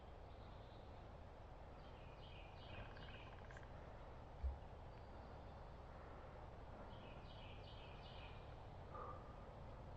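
Quiet woodland ambience with a small bird singing faintly twice, each time a quick run of high notes. A single soft low thump comes about four and a half seconds in.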